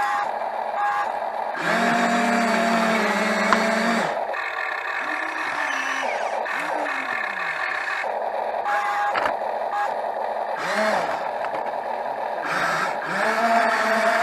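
Excavator working: its engine runs under load with a whine that holds steady for a couple of seconds, then rises and falls in pitch several times as the arm and bucket move.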